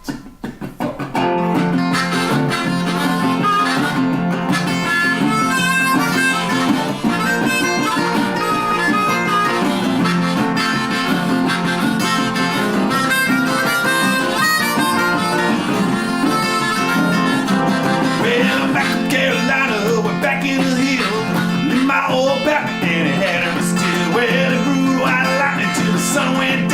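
Blues band playing an instrumental intro: a harmonica wailing over an acoustic guitar, starting about a second in.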